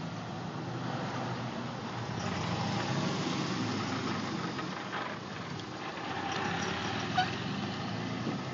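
Road traffic: car engines running close by with steady road noise. A short sharp click about seven seconds in.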